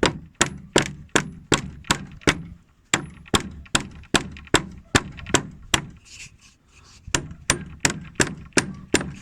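Hammer blows knocking a garden gate's hinge back up into place: a steady run of sharp strikes, about two and a half a second, with a short pause about six seconds in before the hammering resumes.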